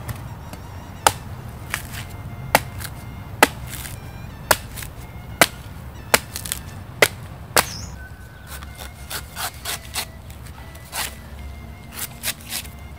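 Machete chopping into the husk of a green coconut: about nine sharp strikes, roughly one a second, then lighter, quieter cuts and scraping from about eight seconds in.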